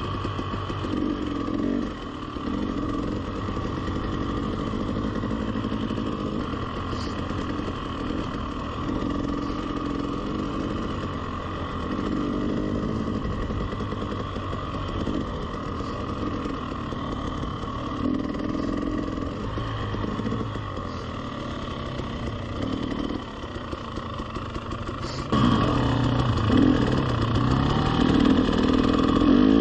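300cc two-stroke enduro dirt bike engine running at low trail speed, the throttle opening and closing. It gets louder about 25 seconds in and ends with a rising rev.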